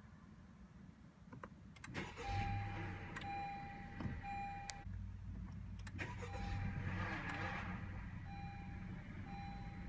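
A few light clicks, then about two seconds in the engine of a 2016 Honda Civic EX-T cranks and starts with a brief grinding noise and settles into a steady idle, the start-up grind the owner reports as a fault. A dashboard chime beeps repeatedly over the idle.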